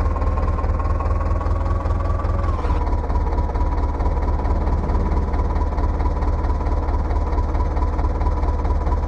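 Heavy diesel engine running steadily with a deep, rapidly pulsing rumble, and a thin high whine held over it that drops slightly in pitch about three seconds in.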